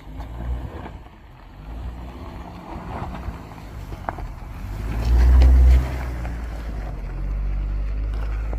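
Suzuki Jimny 5-door's 1.5-litre four-cylinder petrol engine running as it drives past over a rough gravel track, a steady low hum. About five seconds in there is a louder low rumble for just under a second.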